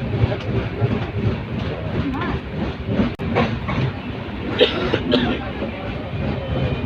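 Passenger train running, heard from inside the carriage: a steady rumble with the repeated clatter of wheels over the rail joints. A couple of brief sharper sounds come a little past halfway.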